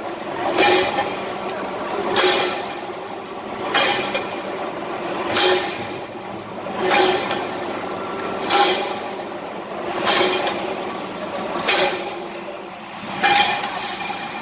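A canning-line machine running with a steady hum. A short, sharp burst of noise repeats about every second and a half as the machine cycles.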